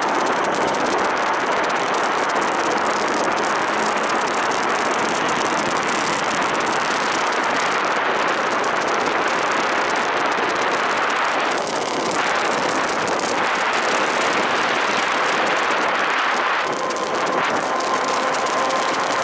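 Steady rushing noise of an electric train running at speed, heard close to the pantograph and overhead wire.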